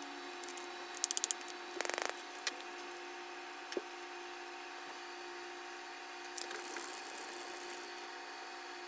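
Small clicks, a short rattle and a tap from paint cups and pens being handled on a wooden table, with a brief rustle later on, over a steady hum. The audio is sped up.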